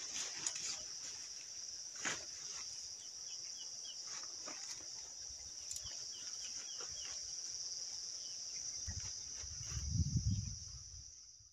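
Night insects, crickets, trilling in one steady high-pitched drone, with scattered short clicks and faint brief chirps. A low rumble swells near the end, then everything fades out.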